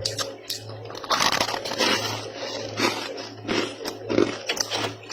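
Freezer frost being bitten and chewed close to the microphone, with irregular crisp crunches. A steady low hum runs underneath.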